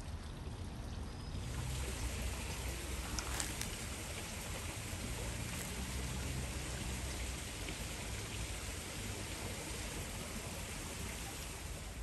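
Small spring-fed stream running, a steady rush of water that grows a little fuller and louder about a second in.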